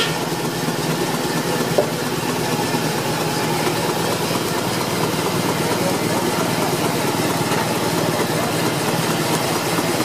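Wheeled steam engine running steadily: a continuous, even mechanical rumble, with one short click about two seconds in.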